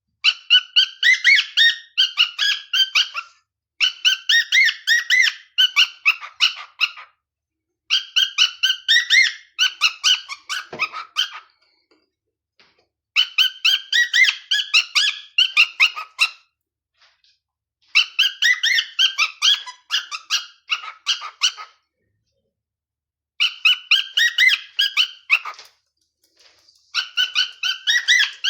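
Cockatiel singing: repeated phrases of rapid, chirpy whistled notes in about seven bouts of roughly three seconds, with short pauses between. It is a young bird practising a learned whistled tune.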